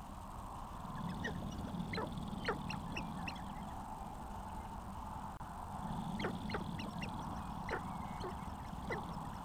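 Sharp-tailed grouse on a lek giving short, rapid clucking and cackling calls in two bouts, one about a second in and another past the middle, over a steady low rumble.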